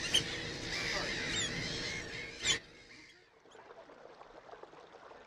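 A gull breeding colony calling together, with the sharp piping calls of a Eurasian oystercatcher standing out. The calling cuts off suddenly about two and a half seconds in, leaving a faint steady hiss.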